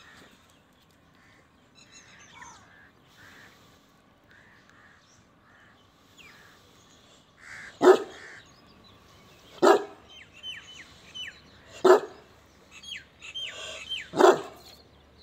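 A dog barks four single barks, about two seconds apart, in the second half. Small birds chirp between them.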